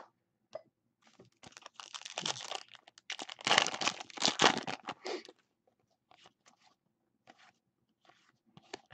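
Clear plastic wrapper of a Panini Contenders football card pack crinkling and tearing as it is pulled open, in two loud crackling stretches that end about five seconds in. After that come light scattered clicks and rustles as the cards are handled.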